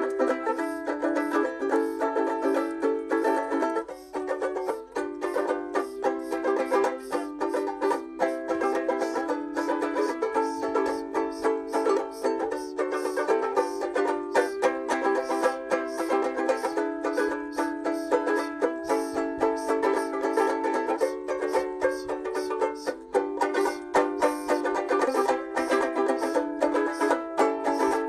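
Background music: a banjolele playing a tune of quick plucked notes.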